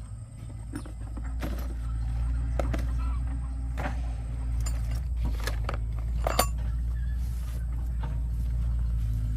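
A machine running with a steady low hum, with scattered clicks and knocks over it. The sharpest knock comes about six seconds in.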